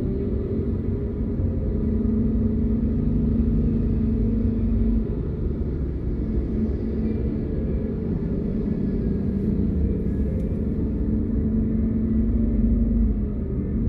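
Car engine and road noise picked up by a dashcam inside the cabin while driving: a steady low rumble with a faint engine hum that comes and goes.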